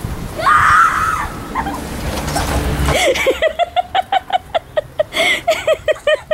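A child shrieks as she sleds down a snow drift, then breaks into a long run of quick, even bursts of laughter.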